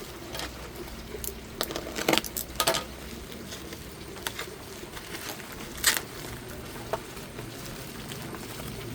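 Scattered crinkles and sharp clicks of a parcel and its packaging being handled and opened, the loudest click about six seconds in.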